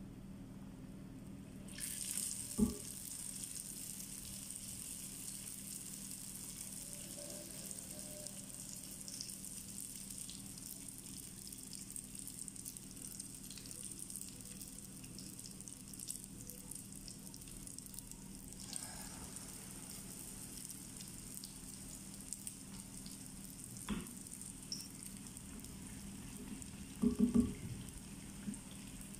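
Sfenj dough rings deep-frying in hot oil in a saucepan: a steady sizzle with fine crackling that grows louder about two seconds in. A few short knocks stand out, one near the start and a cluster near the end.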